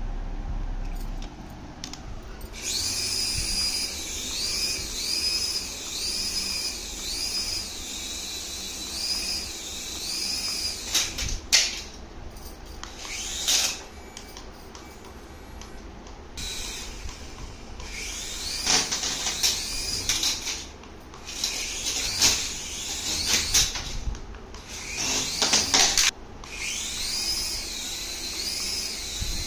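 A toy's electronic sound effect: a high warbling tone that rises and falls about once a second, repeating, with scattered knocks and clatter of handling in between.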